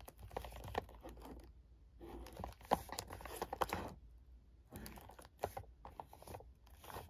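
Clear plastic shrink wrap on a perfume box crinkling and crackling under the fingers as the box is turned over, in several short bouts with sharp little clicks.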